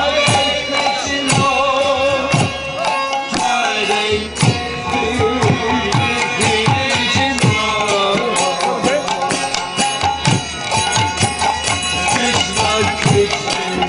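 Devotional kirtan: a group singing over a harmonium's held notes, with mridanga drums beating a steady rhythm.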